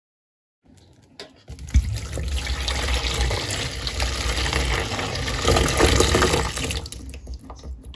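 Just-boiled water poured from a kettle into a plastic tub of soapy water, splashing and frothing as it fills. The pour starts about a second and a half in and tails off near the end.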